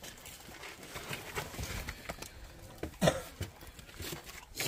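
Faint, scattered clicks and scrapes of a wooden stirring stick in a metal pot of simmering beef and tripe, with one short falling sound about three seconds in.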